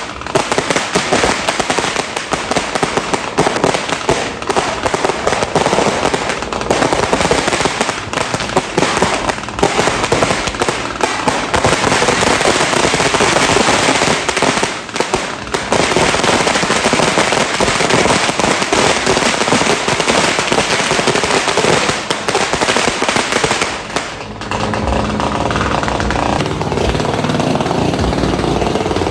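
Dense firecrackers and fireworks going off all around, with many overlapping bangs and crackling. Near the end it changes to a steadier, rapid rattling sound.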